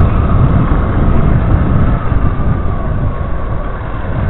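Yamaha Crosser 150's single-cylinder four-stroke engine running while riding, under a heavy low rumble. The engine note falls slightly and gets a little quieter in the second half, as the bike eases off.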